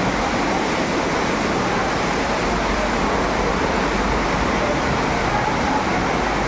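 Seawater that has come aboard surging and sloshing across a ship's flooded deck in a steady, unbroken rush.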